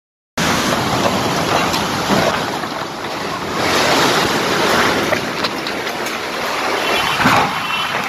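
Heavy rain and strong wind in a storm: a loud, dense rushing that starts abruptly about a third of a second in and swells and eases in gusts.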